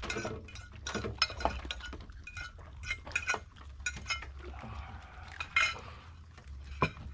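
A series of irregular sharp clicks and clinks, like hard objects knocking together, with a brief louder call about five and a half seconds in.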